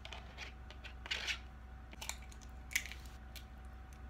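Plastic fork scraping sauce out of a plastic takeout cup, with light clicks and rustles of plastic containers being handled. There is a brief scrape about a second in and a sharp click near three seconds.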